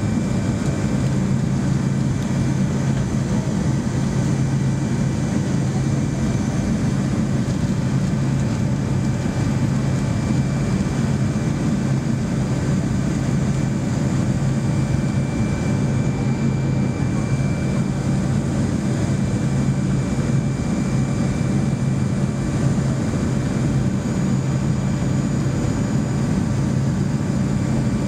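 Steady engine and airflow noise inside the cabin of a Boeing 737-200 climbing after takeoff, its Pratt & Whitney JT8D turbofans running under power. It is a deep, even rumble with a faint, thin high whine over it, unchanging throughout.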